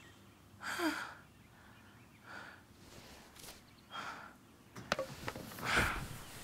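A woman's breathy sighs and exhales, with a short whimper about a second in, then rustling bedding and a soft thump near the end as she drops back into bed.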